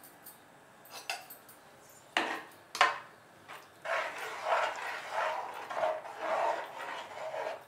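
A spoon stirring thick mutton keema gravy in an aluminium pressure cooker: two sharp clinks against the pot, then repeated stirring strokes, about two a second.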